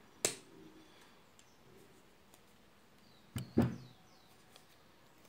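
A metal rotary hole punch snaps shut through EVA foam with one sharp click about a quarter second in. About three and a half seconds in come two louder knocks close together.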